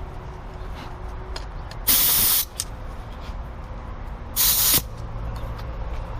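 Two short blasts of compressed air from a blower gun, each about half a second of loud hiss that starts and stops abruptly, the second about two and a half seconds after the first, over a steady low hum.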